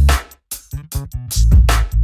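Electronic background music with a drum-machine beat and heavy bass, dropping out briefly about half a second in.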